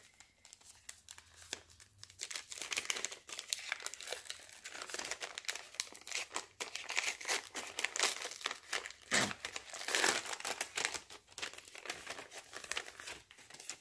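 Packaging being unwrapped by hand: wrapping crinkled, crackled and torn open in a busy, irregular run of rustles.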